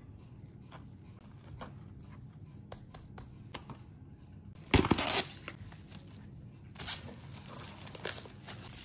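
Plastic cling wrap pulled off its roll and torn off against the box's cutter, a loud, short ripping about five seconds in. Then the wrap crinkles as it is wrapped tightly around the food. Faint hand-handling clicks come before the rip.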